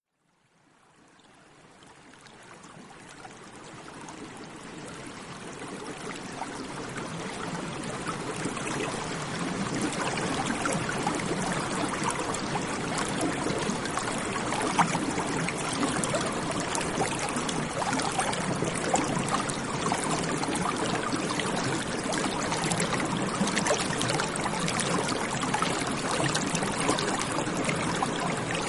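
Running water of a stream flowing steadily, fading in from silence over the first eight seconds or so and then holding at an even level.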